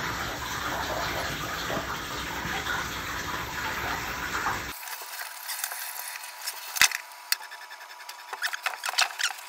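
Shower water running, a steady hiss of spray. About halfway through it thins to lighter splashing and dripping with scattered sharp clicks.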